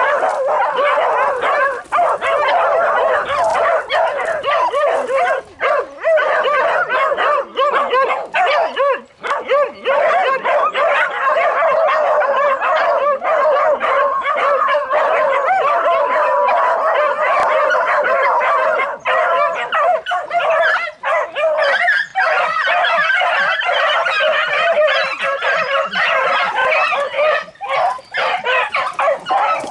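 A pack of beagle bitches baying continuously in overlapping voices. The dogs are holding wild boar at bay (au ferme).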